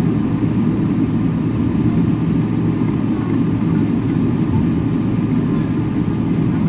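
Steady low rumble of a jet airliner's engines and airflow heard from inside the passenger cabin while the aircraft taxis.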